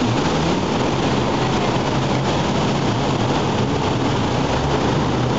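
Steady wash of breaking surf and wind on the microphone, with a low engine hum underneath.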